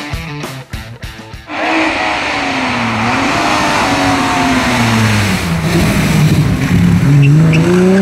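Rock music for about the first second and a half, then cut to a BMW E30 3 Series hillclimb racing car's engine running hard: its revs fall through the middle as it comes up to a bend, then climb steadily again near the end as it accelerates through the corner.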